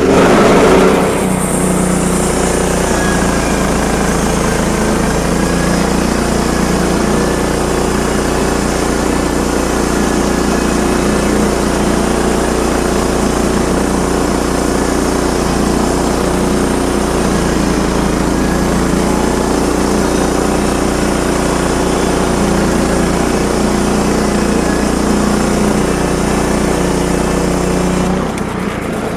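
Sawmill's gas engine throttles up suddenly and runs steadily at full speed through a cut for about half a minute, then drops back near the end.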